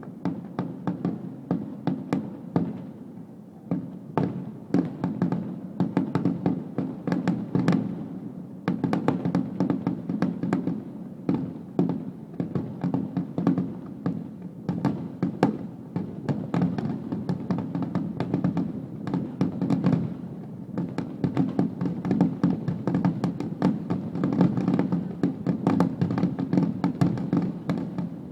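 Fireworks finale barrage: shells bursting in rapid succession, many sharp bangs and crackles a second over a continuous rumble, with brief lulls around four and twenty seconds in.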